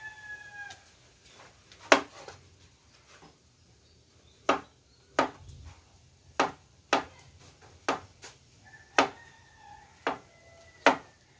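Kitchen knife slicing through a raw potato, the blade knocking on a plastic cutting board about nine times at an uneven pace. A rooster crows faintly in the background near the start and again near the end.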